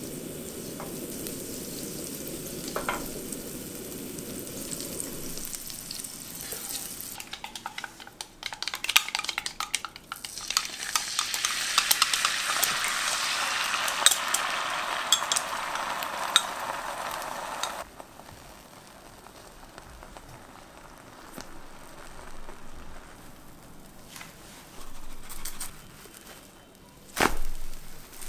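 Butter melting in a hot frying pan with a soft sizzle as it is pushed around. Then a run of light clicks, then beaten egg and milk pour into the pan and sizzle loudly for several seconds before the sound cuts off abruptly. A quieter frying sizzle follows, with a short knock near the end as bread is laid onto the egg.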